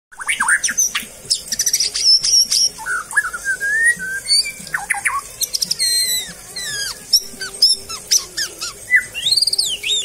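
White-rumped shama (murai batu) singing a varied, rapid song of sweeping whistles, slurred notes and fast trills.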